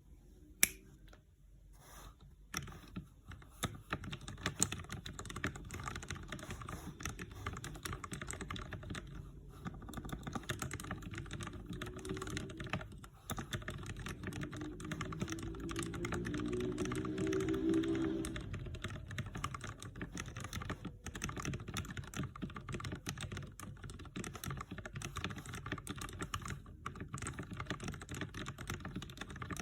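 Typing on a Keychron K6 mechanical keyboard with lubed Gateron Brown tactile switches: a fast, continuous run of keystrokes that gets going about two and a half seconds in, after a single sharp click near the start.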